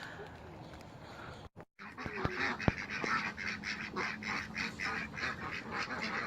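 A flock of domestic waterfowl calling in a rapid, continuous chatter of many overlapping calls, several a second. It starts after a brief dropout about a second and a half in, with a sharp click or two just after.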